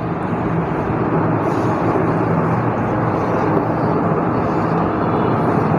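Electric fan running steadily: a loud, even whoosh with a faint low hum.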